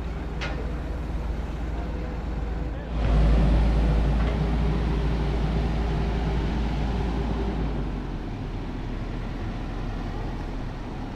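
Volvo 22-tonne excavator's diesel engine running while it digs out soil. It gets louder about three seconds in, as if under heavier hydraulic load, and eases back about five seconds later.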